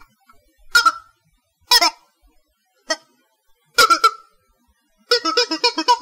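Wah-wah toy sounding in five short blasts, each with a quick warble. The last one, near the end, is the longest at about a second.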